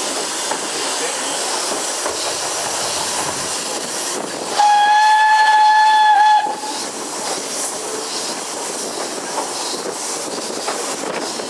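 W.G. Bagnall 0-6-2 tank locomotive's steam whistle sounding one loud blast of about two seconds on a single steady note, with a slight dip just before it cuts off, as the train nears a level crossing. Under it, the steady hiss and rail clatter of the train running, heard from the carriage behind the engine.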